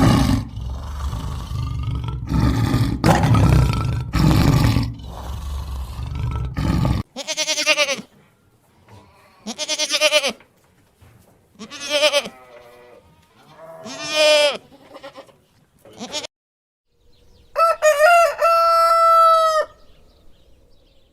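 Farmyard fowl: a noisy stretch of clucking first, then a run of separate pitched calls about two seconds apart, and near the end a rooster crowing once with a long held final note.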